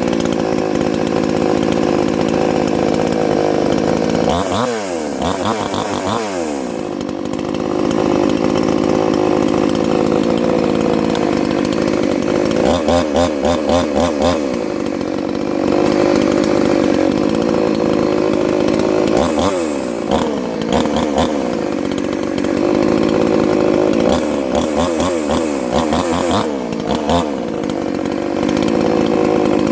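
58 cc two-stroke Chinese chainsaw running at high revs, its engine note dipping and swinging in pitch several times and then picking up again, as in cutting through logs under load.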